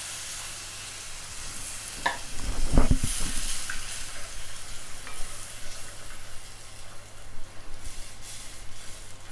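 Hot masala sizzling in a clay pot as water is poured in, then a wooden spoon stirring and scraping the wet masala around the pot. There are a few louder knocks about two to three seconds in.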